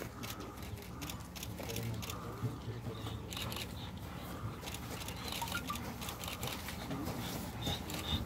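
Faint open-air bustle: a low murmur of onlookers' voices with scattered light taps and rustles from handlers and their police dogs filing past on grass.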